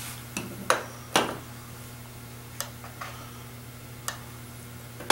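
A handful of light, irregular clicks and taps as small metal parts and a tool are handled on a workbench, the last one the loudest, over a steady low hum.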